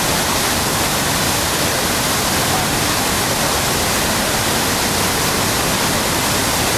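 Niagara Falls heard from close beneath: a loud, steady rush of falling water.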